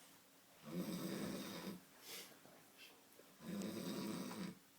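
A sleeping man snoring: two long snores, each about a second, nearly three seconds apart, with quiet breathing between them.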